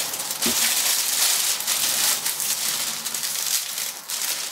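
Clear plastic wrapping crinkling and crackling as hands handle and pull at it, a dense, irregular crackle that starts abruptly.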